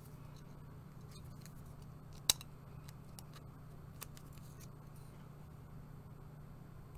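Faint small clicks of a product bottle and its packaging being handled, with one sharper click about two seconds in and another about four seconds in. A steady low hum of room tone runs underneath.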